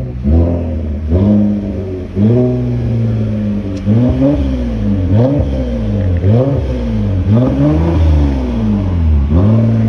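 Toyota Camry 3.5 V6 revved repeatedly while standing, about once a second, through a loud aftermarket exhaust fitted with very loud mufflers. Each blip rises and drops back toward idle.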